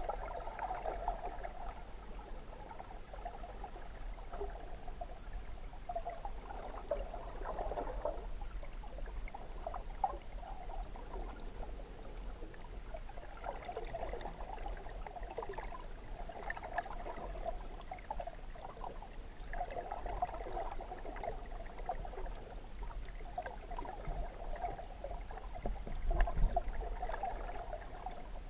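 Muffled water noise picked up by a submerged camera: a steady low hum under gurgling swells that come and go every several seconds, with a brief louder surge near the end.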